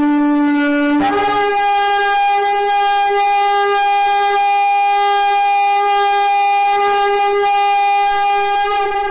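A single long blown horn blast, shofar-like: it begins on a lower note, steps up about a second in to a higher note, and holds that note steadily. It is the trumpet call that the caption announces.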